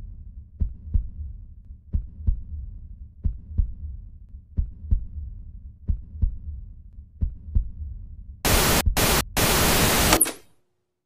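Slow amplified heartbeat, a double thump about every 1.3 seconds over a low hum. After about eight seconds it gives way to a loud burst of static hiss with two brief breaks, which cuts off suddenly.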